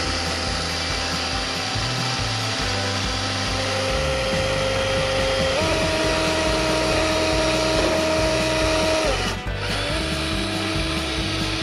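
Whine of LEGO Technic electric motors driving the icebreaker model's drills. It steps up in pitch twice and drops back shortly after the middle, under background music.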